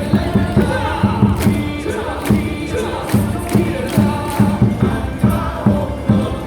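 Baseball crowd singing and chanting a batter's cheer song in unison over loud amplified music with a steady, regular drum beat.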